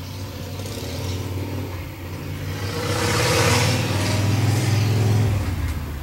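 A motor vehicle's engine hum growing louder with a rising hiss to a peak a few seconds in, then dropping away about five seconds in, like a vehicle passing by.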